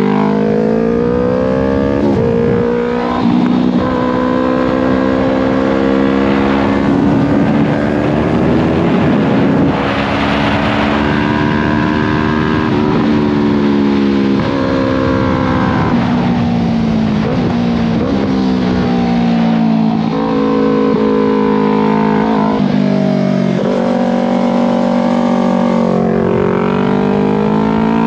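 Yamaha R3's 321 cc parallel-twin engine run hard around a track, its pitch climbing and falling as the rider accelerates, shifts and brakes, with sharp drops in pitch about three seconds in and again near the end. Wind rushes over the microphone, loudest in the middle stretch.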